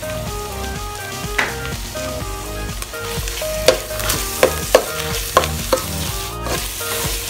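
Ground meat and tomato paste frying in an aluminium pot while a metal spoon stirs it, with a run of sharp clinks and scrapes of the spoon against the pot in the second half.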